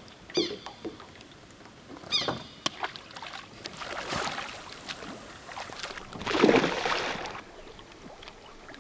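Water splashing and sloshing, with the strongest splash about six and a half seconds in. Two short high falling chirps come about half a second and two seconds in.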